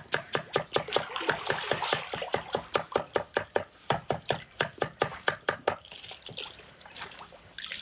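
A rapid, even series of sharp taps, about seven a second, thinning out and fading over the last two seconds, with a faint wet, watery sound beneath.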